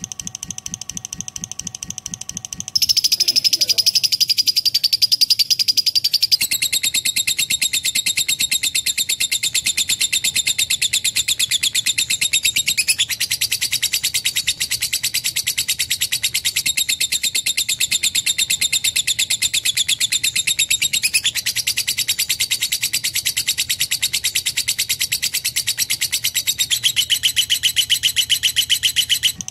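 Lovebird in one long, unbroken chattering trill of very fast, high repeated notes. It gets louder about three seconds in and shifts pitch several times without pausing.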